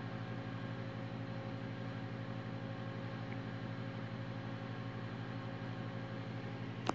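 Steady electrical hum and buzz from a toroidal transformer and diode rectifier charging a bank of 3,000-farad supercapacitors under heavy load, around 50 amps on the low-voltage side. A short sharp click comes near the end.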